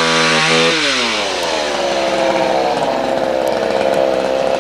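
Two-stroke chainsaw running at full throttle, its pitch falling about a second in and then holding steady at a lower engine speed.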